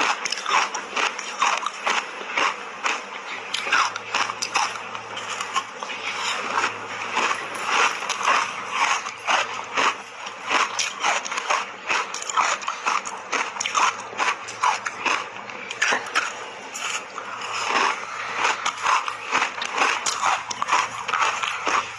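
Close-miked chewing of refrozen matcha-powder ice: dense, irregular crunching and crackling, several crisp cracks a second.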